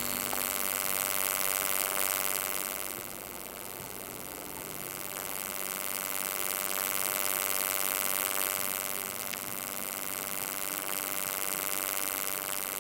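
Steady electric buzzing hum, swelling and easing off in level a few times.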